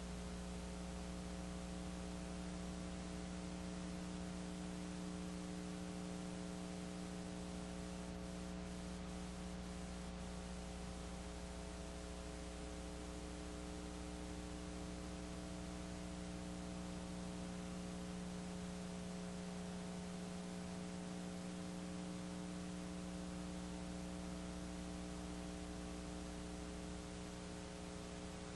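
Steady electrical mains hum with a stack of even overtones over a constant hiss; no game or crowd sound comes through.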